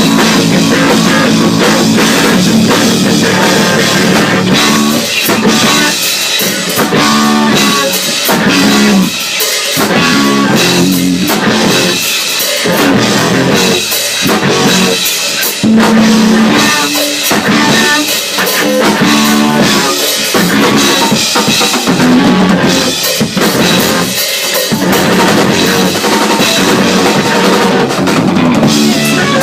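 Loud rock music with a drum kit and guitar playing throughout.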